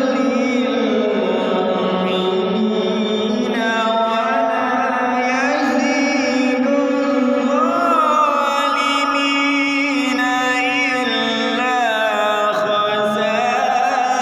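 A man's voice chanting Qur'anic recitation in the melodic tilawah style: long held phrases with sliding, wavering ornaments, the voice pushed hard.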